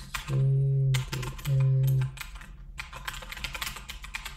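Computer keyboard typing in quick, uneven clicks. In the first half there are two low, steady hums, each under a second long, and they are louder than the keys.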